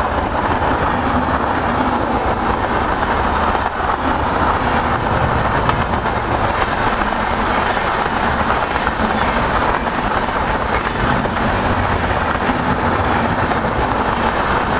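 Sealdah–New Delhi Duronto Express coaches running past at speed behind their WAP-4 locomotive: a loud, steady rush of wheels on rail.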